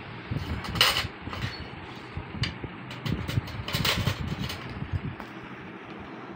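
Forks scraping and clinking in plastic bowls of pasta, with rustling and bumps of movement; the two loudest scrapes come about a second in and about four seconds in.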